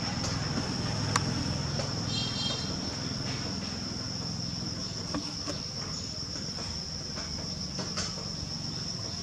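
Potter's wheel turning with a steady low rumble while wet hands smooth the clay rim, with a few light taps. A steady high-pitched insect trill runs throughout.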